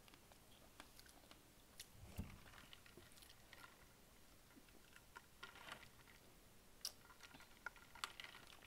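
Faint close-miked eating sounds: chewing and small mouth clicks as sauce is licked from fingers, then sips from a drink through a plastic straw.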